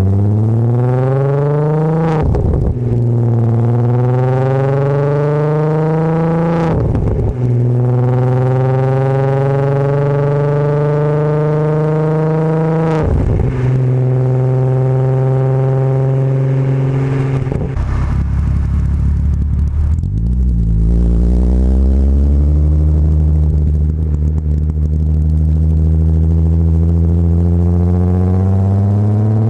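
Volkswagen VR6 engine through its cat-back exhaust, accelerating through the gears: the pitch climbs, drops sharply at each upshift, about five times, then settles into a steady cruise and starts climbing again near the end.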